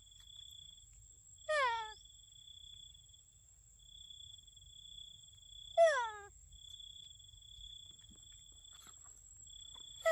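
Two loud animal calls, each under half a second and falling in pitch, about a second and a half in and near six seconds, with a third starting right at the end. Under them runs a steady high-pitched insect drone that comes and goes.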